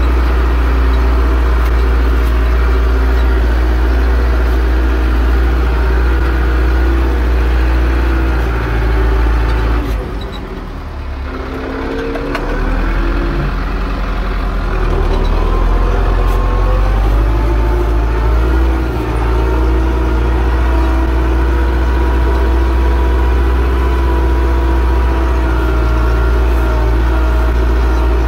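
Zetor 6245 tractor's four-cylinder diesel engine running steadily under load while ploughing. About ten seconds in it eases off and goes quieter for a couple of seconds, then its pitch shifts and it comes back up to full load.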